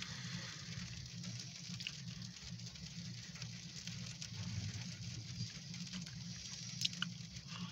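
Freezing rain pattering on a car's roof and windshield, heard from inside the cabin over a low steady hum, with a couple of sharper ticks near the end.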